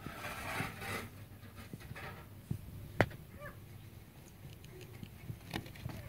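Chukar partridge giving a few short, soft calls, with one sharp knock about halfway through.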